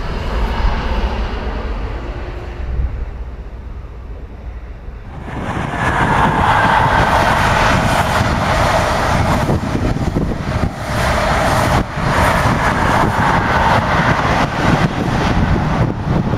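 Class 43 HST diesel trains passing at line speed. First the rumble and wheel-on-rail noise of a train's coaches fades away. Then, about five seconds in, a second HST passes much louder, its diesel power car running with a steady higher-pitched whine over the rail noise, with wind buffeting the microphone.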